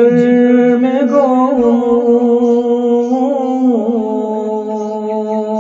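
Wordless male vocal opening a devotional naat: a long held sung tone that wavers gently up and down, then slides down to a lower held note about two-thirds of the way through.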